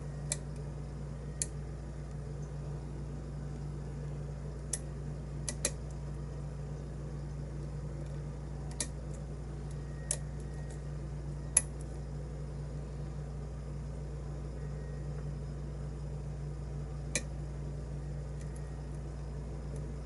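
Light metallic clicks from a lock pick working the pins inside a brass pin-tumbler challenge lock cylinder, about nine scattered clicks with the sharpest a little past the middle, over a steady low hum.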